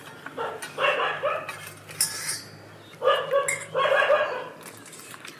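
A dog barking in two short bouts, about a second in and again around three to four seconds in, with a light clink of steel dishes between them.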